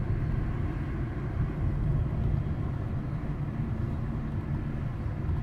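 Steady low rumble of a car driving on city streets, engine and tyre noise.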